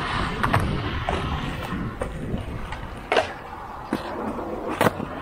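Skateboard wheels rolling on concrete, then two sharp clacks of the board: the tail popping off the ground a little after three seconds in, and a louder smack as it lands near the end.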